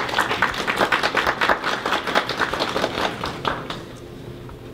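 Audience applauding, the clapping thinning out and fading away about three and a half seconds in.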